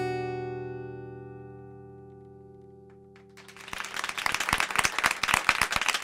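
Acoustic guitar's final note of a song ringing out and fading away over about three seconds. Audience applause breaks in about three and a half seconds in.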